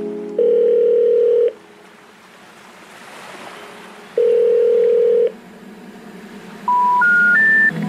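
Telephone line tones: two steady beeps of about a second each, some three seconds apart, then three short tones rising in pitch near the end, the three-note special information tone that comes before a 'number cannot be reached' recorded message.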